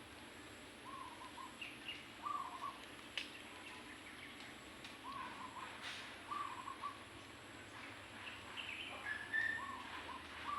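Chickens making short, soft clucking calls, a few every second or two, with a couple of sharp clicks.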